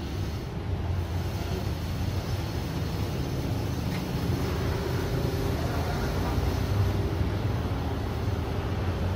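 Hummer H2's V8 engine idling steadily with a low, even hum.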